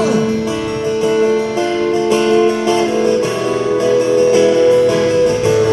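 Music: an instrumental passage of a pop ballad, guitar chords strummed steadily with no singing.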